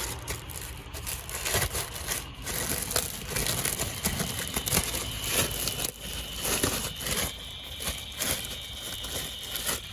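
Packaging crinkling and tearing as a new flywheel is unwrapped: an irregular run of rustles and crackles.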